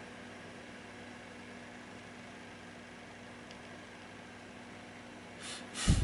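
Steady low hum of room noise, with one short, loud thump near the end.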